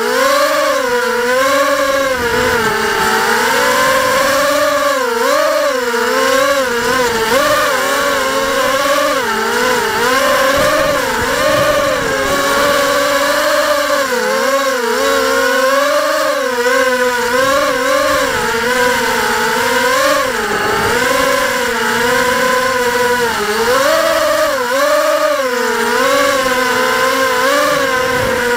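The motors and propellers of an FPV drone whining continuously, the pitch rising and falling again and again as the throttle changes.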